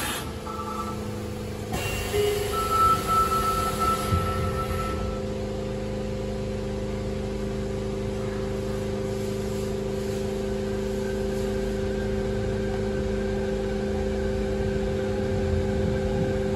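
Fukuoka City Subway 3000A-series car standing still at a station, its onboard electrical equipment giving a steady hum of several low tones. A short high electronic tone sounds about half a second in, and a longer one follows for a couple of seconds, typical of a door chime or buzzer.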